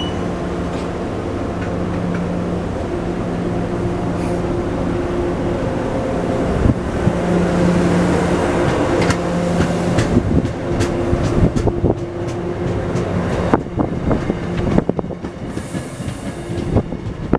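MBTA train passing: a steady rumble with a low hum, then from about seven seconds in a run of clicks and knocks as the wheels cross rail joints.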